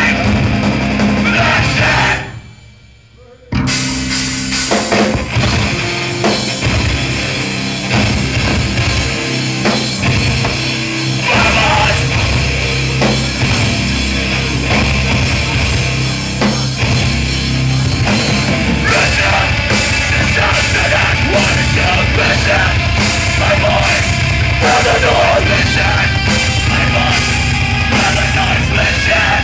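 Heavy rock band playing live, with drum kit and electric guitars. The music drops out abruptly for about a second and a half near the start, then the band comes back in at full volume.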